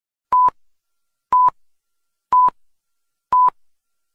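Electronic countdown-timer beeps: four short beeps at the same pitch, one second apart, counting down to the start of the workout timer.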